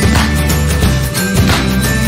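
Background music with a steady low bass line and a sharp beat falling about every second and a half.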